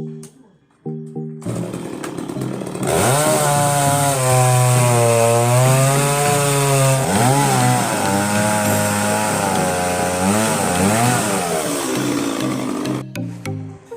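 Chainsaw engine running hard, starting about a second and a half in and ending a second before the end. Its pitch sags and climbs again several times as the chain takes load in the wood.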